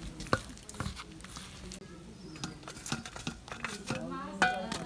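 Hand mixing flour batter in a steel bowl: soft squelching and scraping with scattered clicks and taps against the metal. About four seconds in there is a sharp knock, the loudest sound, with a short chirping, voice-like call around it.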